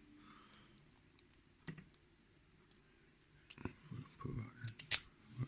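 Small scattered metal clicks and taps from the lock cylinder, key and tools being handled during disassembly. One click comes about two seconds in, and they grow busier over the last two seconds.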